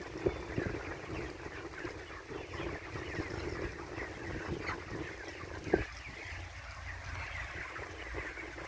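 A flock of chickens clucking and calling over one another, with two sharp knocks, one just after the start and one near six seconds.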